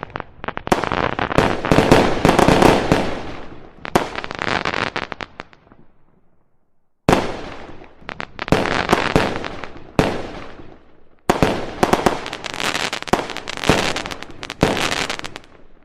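Fireworks going off in dense volleys of rapid crackling bangs, with a short pause about six seconds in before the cracking starts again.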